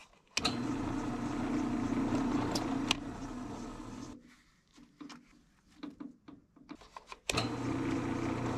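Drill press motor running steadily while the bit bores into the steel excavator linkage part, drilling the hole for a grease fitting. It stops about four seconds in, a few light knocks follow, and the drill press starts again about seven seconds in, the bit spinning clear of the part.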